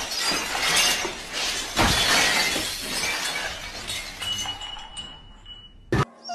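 Glassware crashing and shattering: a long run of breaking and clattering with one heavy crash about two seconds in. It thins out after about four seconds, leaving a faint ring.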